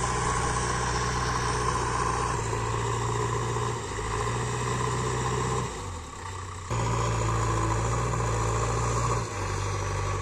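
JCB 3DX backhoe loader's diesel engine running as the machine works the front bucket, its pitch stepping up and down a few times with the throttle. The sound dips briefly about six seconds in and again near the end.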